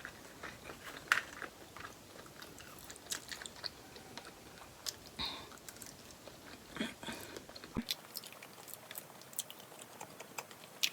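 A person chewing seafood close to the microphone, with irregular soft mouth clicks and wet chewing noises.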